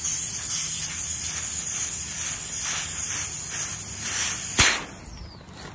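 Air hissing out of an unscrewed valve connector on an inflatable tent's air beam as the beam deflates. A sharp click comes about four and a half seconds in, and the hiss dies away soon after.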